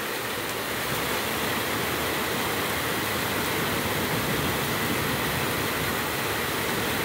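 Heavy downpour: dense, steady rain hiss with no letup.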